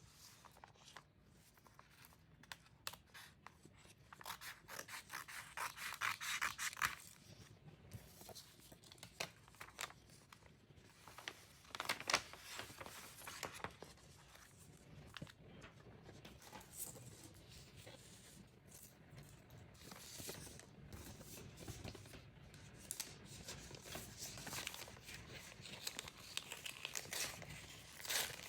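Scissors snipping through packaging by hand, in many short cuts, mixed with tearing and crinkling of the wrapping as it is pulled open.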